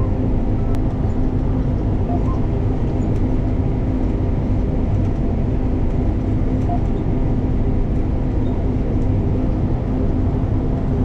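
Combine harvester running steadily, a constant low engine drone with an even hum.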